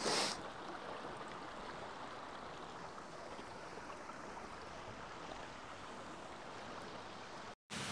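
Steady rush of running water from a small waterfall and river. A short, loud burst of noise comes right at the start, and the sound drops out for an instant near the end.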